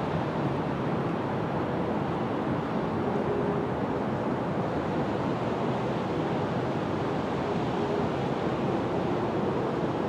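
Steady outdoor rushing noise with no distinct calls or impacts.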